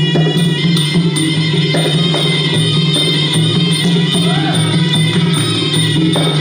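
Traditional Kun Khmer fight music: drums and small hand cymbals keep a quick, even beat under a held, reedy wind-instrument melody.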